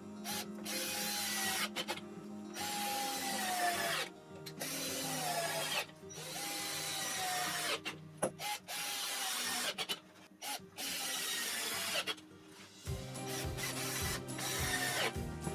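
Power drill running in repeated bursts of a second or two, its motor pitch falling away each time the trigger is released.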